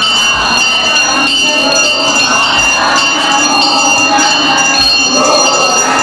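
A temple bell ringing without pause, its high metallic tones holding steady, over a crowd of women singing devotional songs together.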